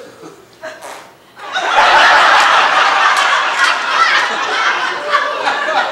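Live theatre audience breaking into loud laughter about a second and a half in, then laughing steadily.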